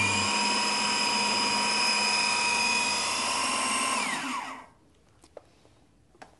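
Electric food processor running steadily, blending a pea purée with cheese, then switched off about four seconds in, its motor whine falling in pitch as it winds down.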